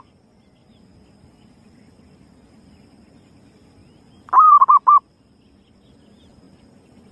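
Zebra dove (perkutut) cooing: one short phrase about four seconds in, a longer first note followed by three quick coos.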